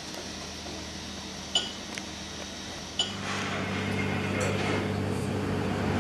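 Two sharp, ringing clinks about a second and a half apart over a steady low hum; after the second clink the background noise rises.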